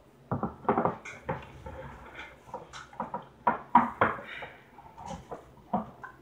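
Fingers working the ring-pull lid of a metal can of mackerel in brine: a run of irregular clicks, taps and light metallic scrapes, loudest about four seconds in.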